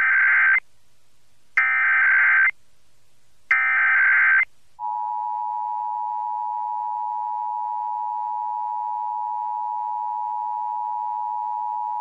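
Emergency Alert System broadcast tones on FM radio: three roughly one-second bursts of the SAME digital header's data tones, each about a second apart. Then, about five seconds in, the steady two-tone EAS attention signal begins. This sequence opens an Amber Alert activation.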